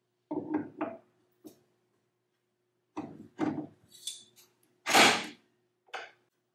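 Resin 3D printer's build plate and its locking lever being handled on the Z-axis arm: a series of separate knocks and clunks with a short scrape, the loudest clunk about five seconds in.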